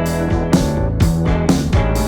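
Background music with guitar and drums, a steady beat about twice a second.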